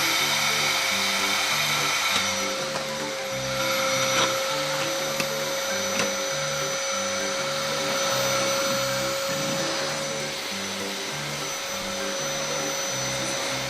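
Battery-powered toy vacuum cleaner running with a steady whine, which cuts off suddenly at the end.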